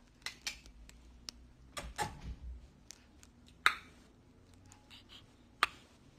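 About eight short, sharp clicks and crackles scattered irregularly as a baby plays with a soft fabric toy, the loudest a little before four seconds in and again near the end.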